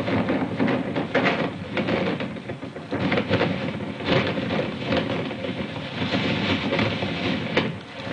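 Strong gusting wind buffeting the camera microphone, a rough, distorted rush that swells and dips with the gusts.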